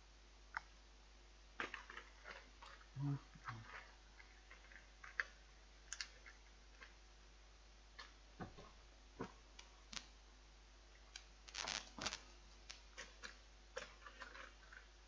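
Scattered light clicks and crackles of a plastic chocolate tray being handled, denser for a moment near the end, with one brief low vocal sound about three seconds in.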